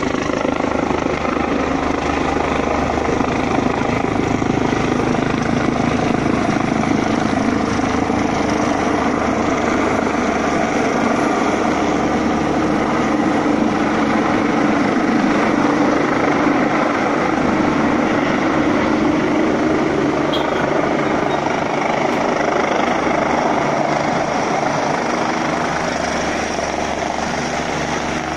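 Helicopter flying low overhead on its approach to land, its rotor blades chopping with a loud, steady beat.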